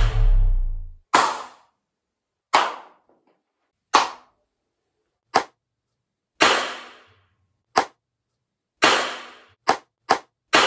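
Single hand claps, about eleven of them, roughly one every second or so and quicker near the end, each followed by a short ringing decay of the room: a clap test of the room's reverberation, in a bare empty room and in the same room fitted with perforated wooden acoustic panels.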